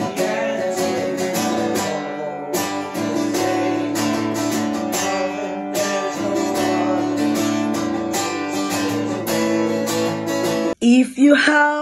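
Instrumental music led by a strummed acoustic guitar. It cuts off abruptly about a second before the end, and a solo voice starts singing.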